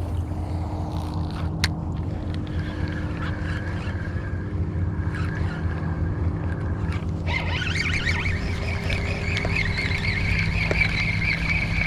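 Boat motor running steadily with a low hum, and a higher whine joins in about seven seconds in.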